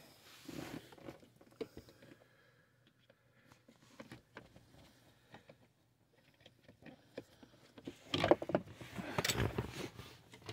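Light plastic clicks and rustling from hands fitting a car's cabin air filter cover and its clip under the dashboard. About eight seconds in comes a louder stretch of rustling and knocks, handling noise as the camera is moved.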